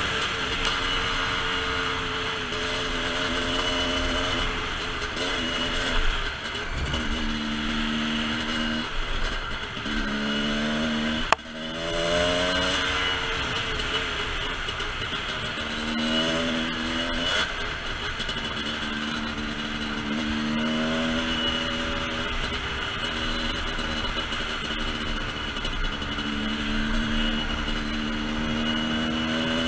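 A TM Racing 250cc dirt bike engine under way, its pitch repeatedly rising as it accelerates and dropping back, with wind noise over it. There is a single sharp click about eleven seconds in.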